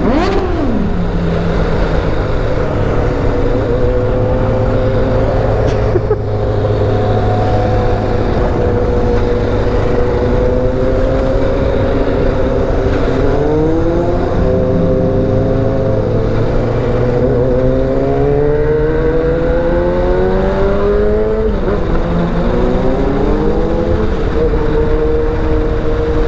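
Honda NX4 Falcon's single-cylinder engine under way, heard on board with wind noise on the microphone. It holds a steady pitch for a while, then climbs as it accelerates, dropping back sharply twice at gear changes.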